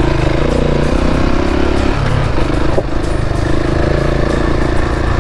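KTM 690 Enduro's single-cylinder engine running steadily while riding on a dirt road, with a single short knock just under three seconds in.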